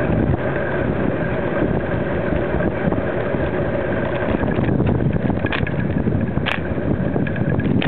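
Wind buffeting a bicycle-mounted camera's microphone while riding, mixed with steady tyre rumble on asphalt. Two short clicks come near the end.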